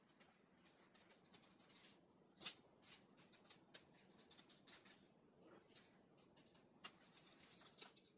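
Small screwdriver backing tiny screws out of the metal side bracket of a laptop LCD panel: faint scattered clicks and ticks of metal on metal, with a sharper click about two and a half seconds in and another near seven seconds.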